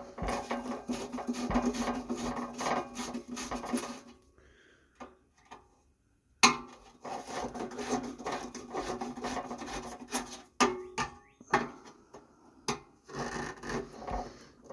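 Metal scraping and grinding as a tool works at stuck screws on the sheet-metal housing of a vintage Suburban RV furnace. It comes in long rough stretches, stops for about two seconds in the middle, and is broken by a few sharp clicks in the second half.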